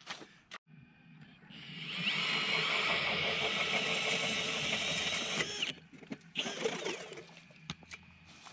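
Cordless drill driving an ice auger: it spins up about a second and a half in, runs steadily for about three and a half seconds, then winds down, followed by a shorter second burst.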